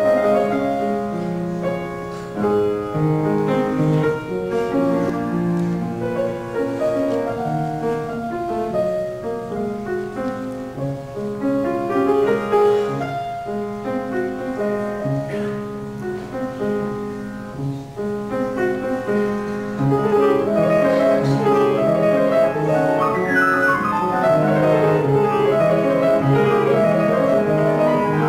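A piece played solo on a grand piano, a steady flow of notes across the low and middle keys; the playing grows louder about two-thirds of the way through.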